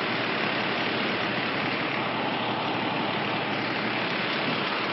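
Parked fire engine's diesel engine running steadily at idle close by: an even, unchanging noise.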